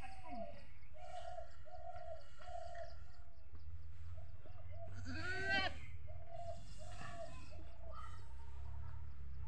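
A goat doe in labour bleats once, a single rising-then-falling call about five seconds in. Short, evenly spaced calls repeat at a steady pace before and after it.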